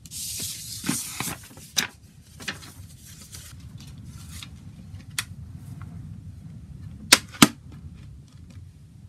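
Paper CD booklet rustling as it is gathered up and folded, then scattered light taps and clicks from handling. Near the end come two sharp clicks, the loudest sounds, as the plastic jewel case is set down on the table. A steady low hum runs underneath.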